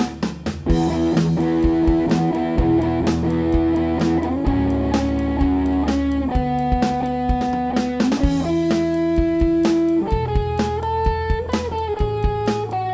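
Band song led by electric guitar over bass and a steady beat of sharp hits, heard as the original unmastered mix.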